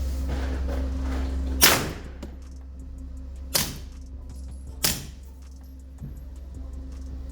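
Three suppressed gunshots fired with subsonic ammunition, about two seconds then just over a second apart, each a sharp crack with a short ringing tail, the first the loudest.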